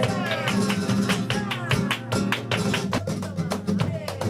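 Live flamenco guitar playing in soleá por bulerías, with many sharp percussive hits throughout.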